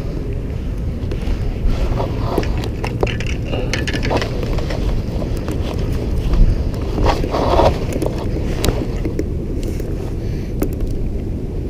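Wind buffeting the camera microphone, a steady low rumble, with scattered small clicks and knocks of handling over it.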